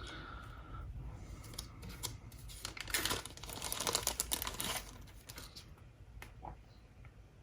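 Crinkling and rustling handling noise with a few light clicks, strongest for about two seconds in the middle, as small rubber idler parts are handled during a cassette Walkman repair.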